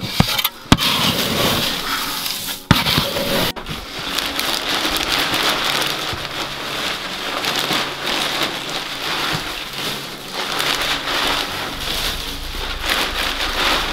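A plastic scoop digging into a bin of grain-and-pellet chicken feed, with a couple of sharp knocks, then dry pine shavings rustling steadily as handfuls are pulled from a bag and scattered over a coop floor.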